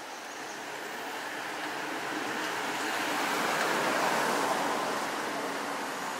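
A car passing along the street: the hiss of its tyres and engine swells to its loudest about four seconds in, then fades.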